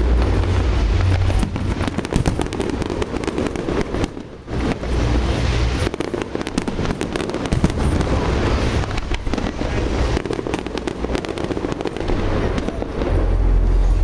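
Fireworks display going off: a dense, continuous run of crackling and popping over a low rumble, easing briefly about four seconds in.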